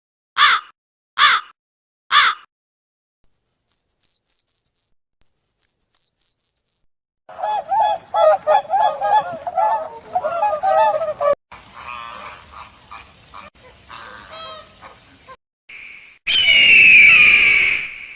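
A sequence of different bird calls: a few harsh caws, then high quick chirping, then a fast run of loud goose honks, fainter mixed calls, and a loud, harsh, drawn-out scream near the end.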